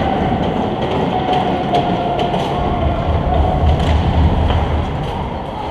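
Ice rink game noise: skates scraping on the ice and a few faint stick clicks over a steady hum. A low rumble rises for a second or so about halfway through.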